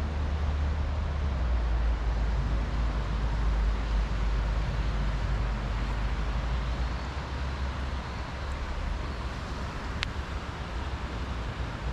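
A car driving, with a steady low engine and road rumble that eases after about seven seconds. A single sharp click comes near the end.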